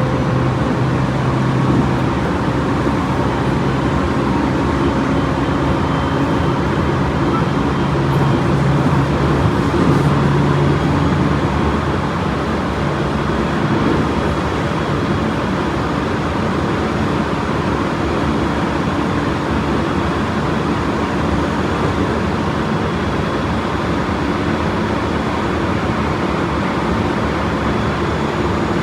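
Running noise heard inside a Tobu 30000 series electric train car at speed: steady wheel-and-rail rumble with a low hum from its Hitachi IGBT inverter-driven traction motors. The hum fades about a third of the way through while the rumble carries on.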